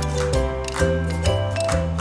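Background music with a steady beat over a bass line that changes note about every half second.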